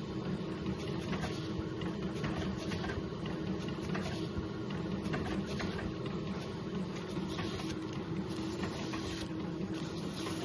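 Epson ColorWorks C6500Au inkjet label printer running a print job, feeding out a strip of labels: a steady mechanical whir over a constant low hum, with faint small clicks.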